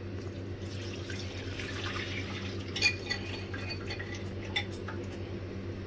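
Thin chocolate pudding batter of milk, cornflour and cocoa pouring from a glass bowl into a saucepan, followed by a wire whisk scraping and clinking against the glass bowl, with a few sharp clicks about three seconds in.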